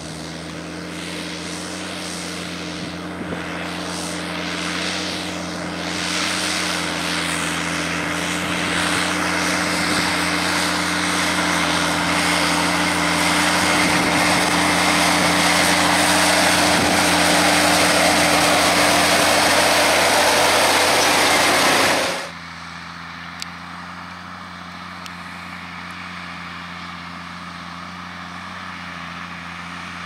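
Fendt 820 Vario tractor's six-cylinder diesel engine running under load as it pulls a Kverneland six-furrow plough through the soil on a slope. It grows steadily louder as the tractor comes closer, then drops suddenly about two-thirds of the way in to a quieter, steady engine note from further off.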